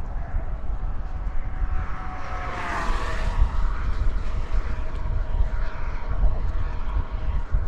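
Traffic passing on a bridge: a vehicle goes by close about three seconds in, swelling and then fading, its pitch falling as it passes, over a steady low rumble.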